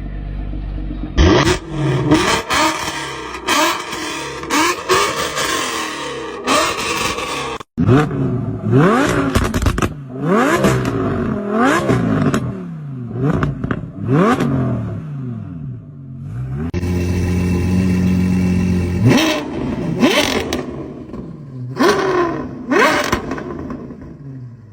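V-engines revving in a series of edited clips: repeated quick throttle blips, each rising sharply in pitch and falling back, with an abrupt cut about a third of the way in and a couple of seconds held at a steady pitch before more blips near the end.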